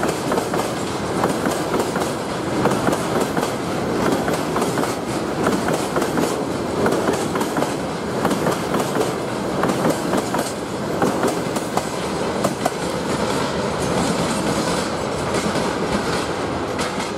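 Freight train of tank wagons rolling past, steel wheels clattering over rail joints in a dense, steady run of clicks over a continuous rumble.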